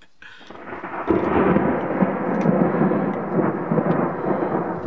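Close thunder from a dry storm: a long rolling rumble that builds, grows suddenly loud about a second in, and keeps rumbling.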